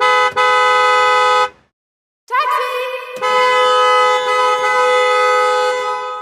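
Taxi horn honking: one held honk with a brief break about a third of a second in, cut off about a second and a half in, then after a short pause a second, longer steady honk that holds until near the end and tails off slightly.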